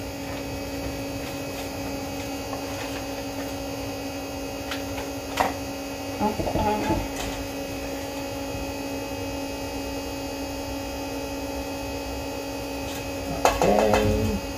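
A steady electrical hum made of several constant tones, with a single click about five seconds in. Brief low murmurs come around six seconds and again, louder, near the end.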